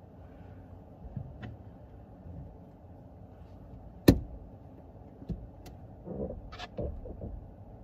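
A car's hand parking brake lever being worked: one sharp, loud click about four seconds in, with lighter clicks before and after and a short stretch of rustling and small knocks from handling near the end, over a low steady rumble.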